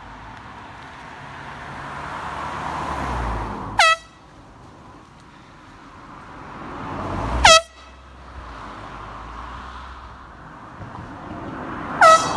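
Air horn blasted three times, each blast very short, as cars pass. The rushing noise of an approaching car swells before each blast.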